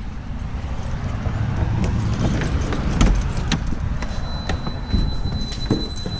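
A bunch of keys jangling and clinking in the hand, in irregular clicks, over a steady low rumble. A thin, steady high whine comes in about four seconds in.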